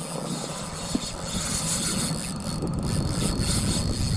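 Low rumbling wind-and-boat noise out on the open sea, without clear pitch, getting a little louder partway through.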